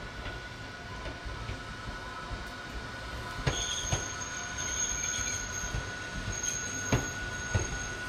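Old Hakone Tozan Railway Moha 1-type electric railcar rolling slowly in, its wheels squealing on the rails with a steady high whine. A second, higher squeal joins around the middle. Sharp knocks of the wheels over rail joints or points come twice around the middle and twice near the end.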